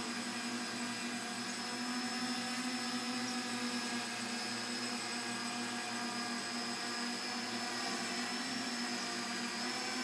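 Electric motors and rotors of a small remote-controlled rotorcraft hovering, a steady high whine that holds an even pitch.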